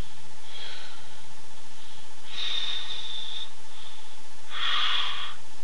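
A man breathing heavily, three noisy breaths with the middle one the longest, over a steady hiss.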